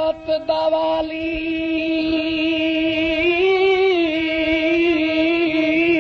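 Punjabi folk song music: a few drum strokes in the first second, then one long held melodic note that bends slightly in pitch and wavers.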